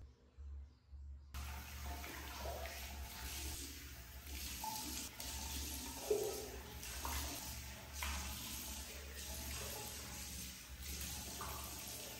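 Bathroom tap running into a ceramic washbasin, with a hand splashing under the stream. The water starts about a second in.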